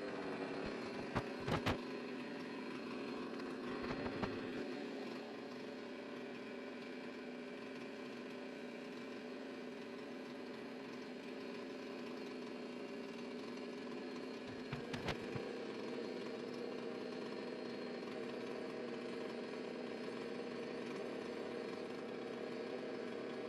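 Two-stroke chainsaw engine idling steadily on a test run just after being reassembled, having stalled earlier. A few brief clicks or knocks come in the first couple of seconds and again about fifteen seconds in.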